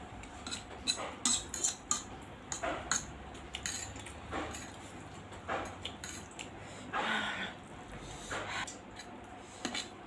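A metal fork clinking and scraping against a ceramic plate as noodles are twirled and scooped, in irregular sharp clicks that come thickest in the first two seconds. Short chewing and eating noises fall in between.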